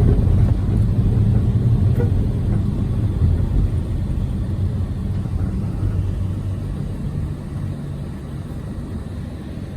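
A loud, steady low rumble that eases off slightly over the seconds.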